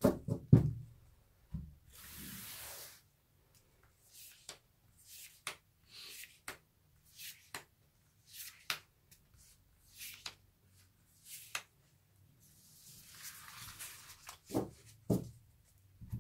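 Tarot cards handled on a cloth-covered table: two longer sliding swishes, one about two seconds in and one near the end, as the deck is spread and gathered, between scattered soft taps and clicks as cards are touched and drawn, with a few louder knocks at the start and near the end.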